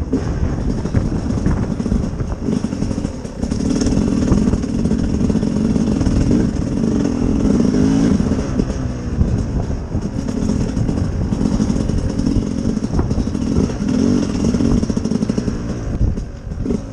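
Sherco SER 300 two-stroke enduro motorcycle engine running while ridden at low speed. The engine note rises and falls with the throttle, easing off briefly about three seconds in and again near the end.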